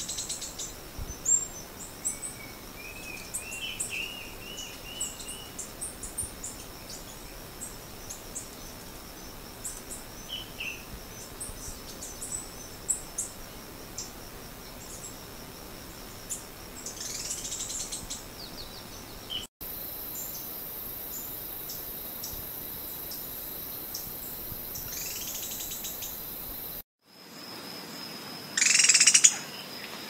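Serra das Lontras treehunter (an undescribed Heliobletus species) calling: scattered sharp high notes and a short run of rising notes a few seconds in, then several brief calls that sweep downward, the loudest about a second before the end. The background changes abruptly twice, where separate recordings are joined.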